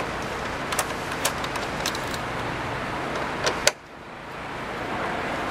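Small sharp clicks and taps, about five in all, as the screws holding a Scania truck headlight are turned out by hand, over a steady rushing background. Just after the last two clicks the background cuts out suddenly, then fades back in.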